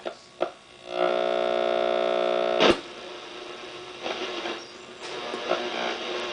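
Wards Airline 8-band AM/FM/CB portable radio's output as its knob is turned: a few clicks, then a steady buzzing tone about a second in that cuts off with a sharp click, followed by static and snatches of signal.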